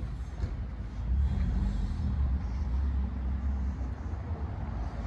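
Quiet street ambience with a low rumble that swells from about one to four seconds in.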